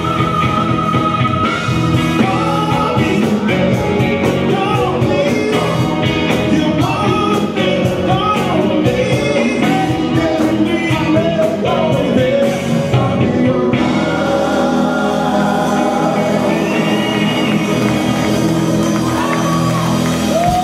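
A live R&B band playing, with a lead vocalist singing over keyboards, electric guitar, bass guitar and drums.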